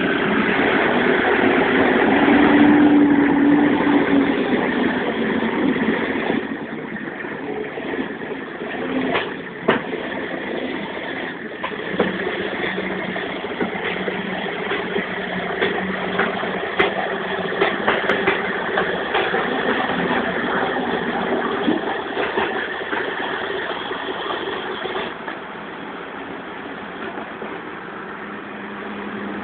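Tractor diesel engines running, a Fendt 926's six-cylinder diesel among them, loudest in the first six seconds, with a few sharp knocks later on.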